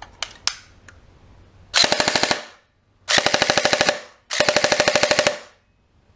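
G&G CM16 SRXL electric airsoft rifle firing full auto: three short bursts of rapid, evenly spaced shots from its battery-driven gearbox, the first burst shorter than the other two. A few light clicks come just before.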